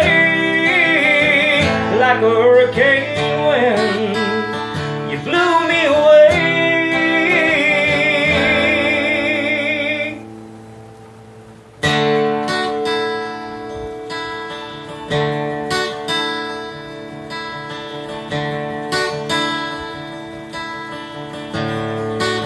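Male voice singing a long wavering line with vibrato over acoustic guitar. About ten seconds in the voice and guitar drop away almost to nothing. The guitar then comes back with strummed chords alone to close out the song.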